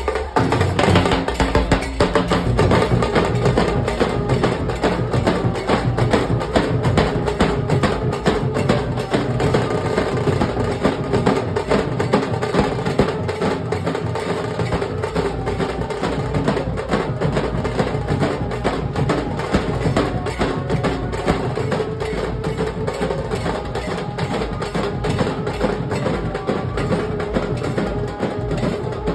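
Nasik dhol drumming: a troupe of dhol barrel drums with tasha playing a fast, dense, continuous rhythm.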